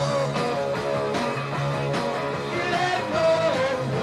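Punk rock band playing live: distorted electric guitar, bass and drums, loud and unbroken.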